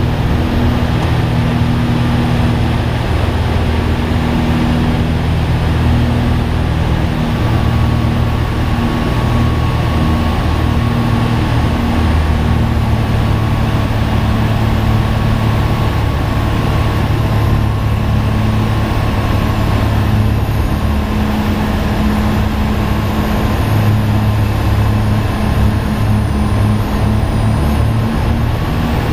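Light piston airplane's engine and propeller drone heard inside the cockpit on final approach: a steady low hum of several tones with a hiss of airflow over it.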